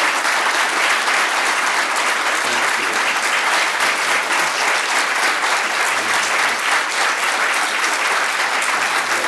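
Audience applauding: dense, steady clapping from a full hall that keeps on without a break.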